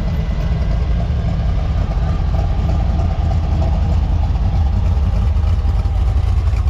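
Vehicle engine idling: a loud, steady low rumble.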